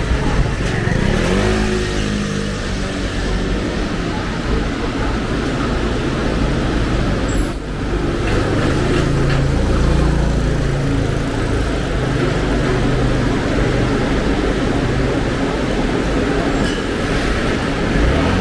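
City street traffic: vehicle engines running and passing steadily, with one engine revving up about a second in.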